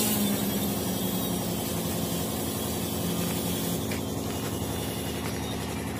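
Electric rotors of a large VTOL fixed-wing survey drone whirring down after a vertical landing: a low hum that fades out about four seconds in, over a steady rushing noise.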